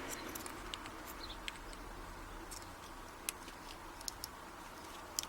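Faint, scattered small metallic clicks and ticks as a thin shim is worked in around a padlock's lock core to free it, over a low steady hiss.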